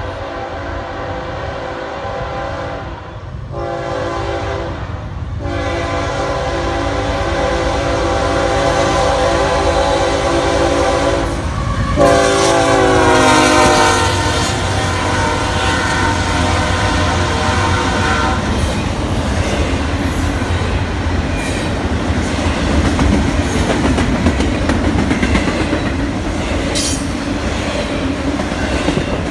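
BNSF diesel locomotive's air horn blowing several blasts as the intermodal train approaches. Its pitch drops as the locomotive passes about 12 seconds in, and the horn stops a few seconds later. Then the double-stack container cars rumble past, their wheels clacking over the rails.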